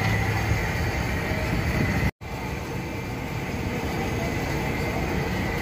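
Low, steady background noise of an outdoor food stall, with a momentary dropout about two seconds in.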